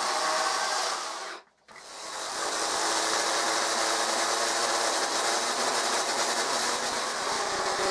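Corded electric Dolmar chainsaw running and cutting into a wooden block, a steady motor and chain sound. About one and a half seconds in it dies away to near silence, then builds back up and keeps running.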